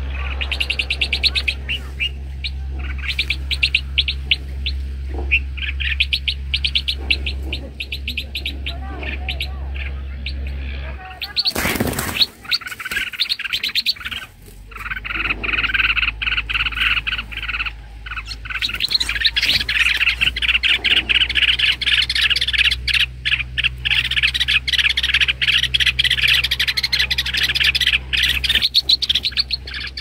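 Bulbuls calling in distress, fast repeated chirps that come thicker and louder from about halfway on, while a snake raids their nest. A steady low hum runs underneath, broken by a brief rushing noise a little before halfway.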